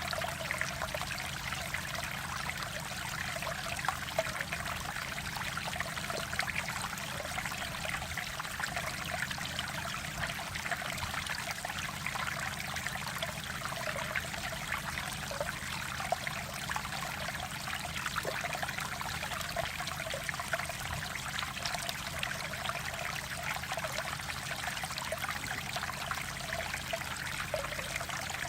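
Water of a valley stream flowing steadily: an even rush of water with many small trickling splashes.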